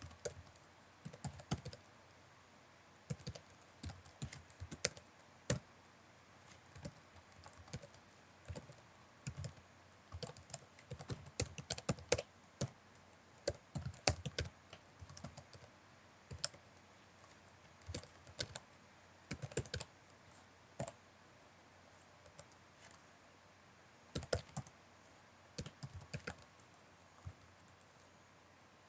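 Typing on a computer keyboard: bursts of quick keystroke clicks in irregular runs, broken by short pauses of a second or two.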